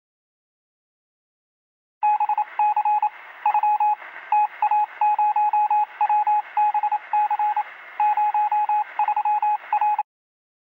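Morse code: a single steady-pitched tone keyed on and off in short and long beeps over a thin radio hiss, starting about two seconds in and cutting off sharply near the end.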